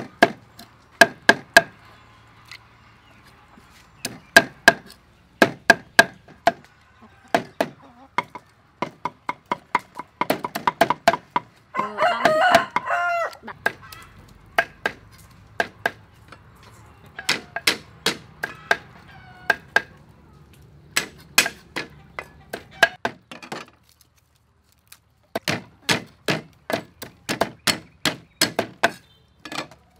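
A cleaver chopping garlic on a round wooden chopping block: sharp knocks in uneven runs with short pauses. A rooster crows once, about twelve seconds in.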